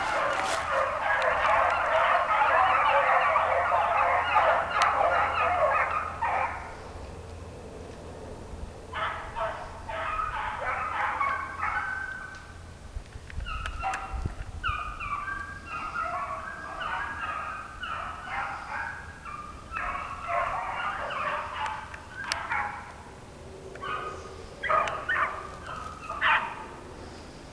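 A pack of beagles baying on a rabbit's trail in a running chase, many voices at once. The chorus is loud and continuous for the first six seconds or so, then breaks into fainter bouts of baying for the rest.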